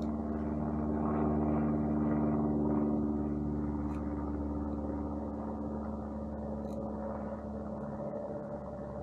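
Steady machine hum, like a motor or fan running, made of several fixed tones and easing off slightly toward the end, with a couple of faint ticks.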